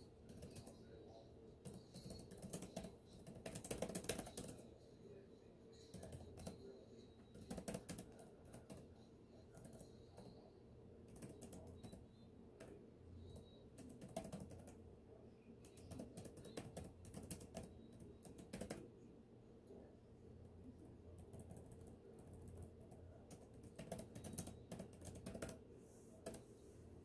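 Faint typing on a computer keyboard: keys clicking in irregular quick runs with short pauses between them.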